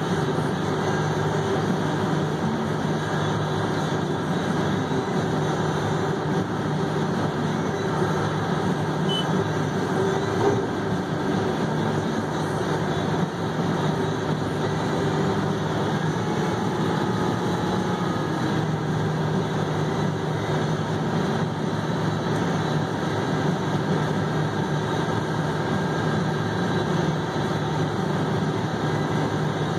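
Haul truck's diesel engine idling steadily, heard from inside the cab.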